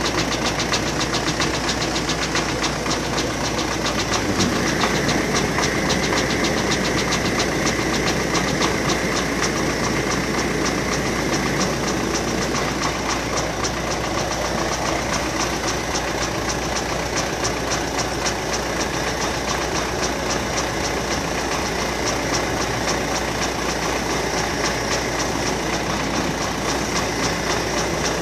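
MTZ-82 tractor's four-cylinder diesel engine running steadily at an even pace, warming up after a cold start at −7 °C.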